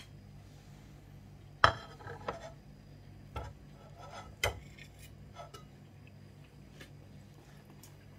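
Metal cake server and knife clinking and tapping against a plate and a glass cake stand as a slice of cake is served: a few scattered sharp clinks, the loudest about a second and a half in, then lighter taps.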